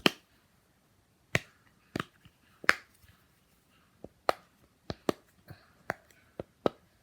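Simple dimple fidget toy being pressed: its silicone bubbles pop one at a time with sharp clicks, about a dozen, coming faster in the second half.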